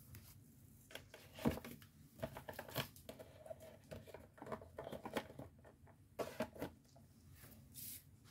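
Oracle cards being handled on a board: a scattered series of light taps, clicks and brushing swishes of card on card and board.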